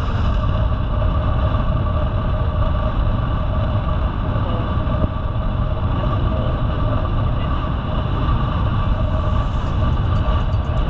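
Steady wind rush on the camera microphone and tyre noise from a road bike rolling along an asphalt road. A faint rapid ticking comes in near the end.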